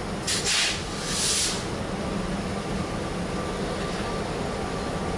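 A diesel locomotive drones steadily as it approaches slowly. Two short bursts of hiss come in the first second and a half.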